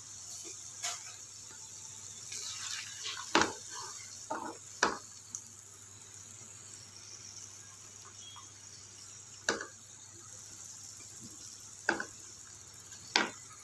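A wooden spatula knocking and scraping against a frying pan as lightly fried paneer cubes are turned and lifted out, about six sharp knocks spread out over a faint steady hiss.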